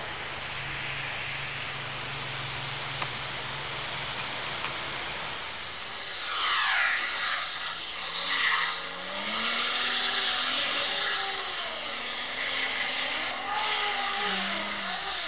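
Motor vehicle noise on a snowy street: a steady hiss with a low hum, then from about six seconds in a louder whine that wavers up and down in pitch.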